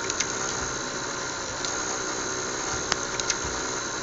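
Steady mechanical hum with a noisy whirr, broken by a few sharp clicks: one near the start and a quick cluster about three seconds in.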